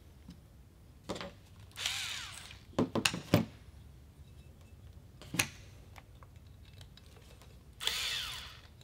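Cordless electric screwdriver whirring in two short runs, about two seconds in and again near the end, driving the scope rail's mounting screws. Sharp clicks and knocks of parts being handled come in between.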